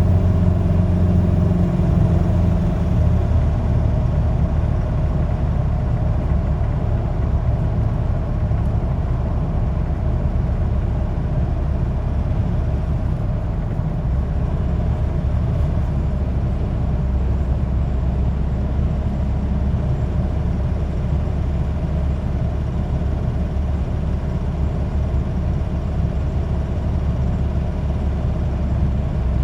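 Nissan Navara D40's engine running, its revs stepping down in the first few seconds and then holding at a steady idle. The owner suspects the noise is from an injector.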